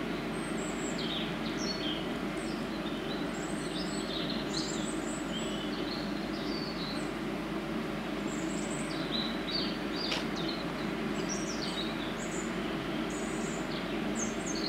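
Birds chirping in short, irregular calls over a steady low rumble of background noise.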